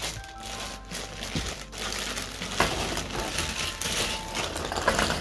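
Clear plastic bag of cardboard jigsaw puzzle pieces crinkling as it is pulled open and lifted, the loose pieces rustling and shifting inside.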